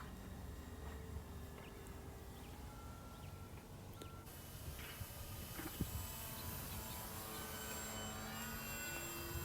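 Faint whine of a small electric RC plane motor and propeller in flight, its pitch drifting slowly, over low wind rumble. The whine becomes clearer about four seconds in.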